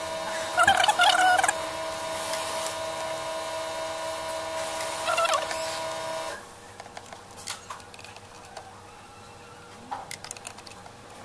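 A steady hum with short warbling squeals over it, the hum cutting off about six seconds in. After that come a few light clicks and taps from a socket ratchet and screws being worked on the engine control module's metal cover.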